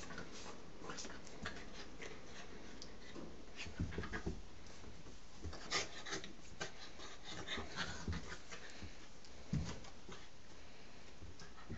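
A Shetland sheepdog and a cat play-fighting: scuffling, with scattered light clicks and several soft thumps of bodies and paws on a rug. The louder thumps come about four, six and nine and a half seconds in.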